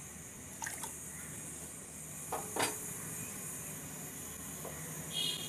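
A pot of water boiling with basmati rice just poured in, a steady bubbling hiss. A few light knocks against the pot, the loudest about two and a half seconds in, and a brief high-pitched tone near the end.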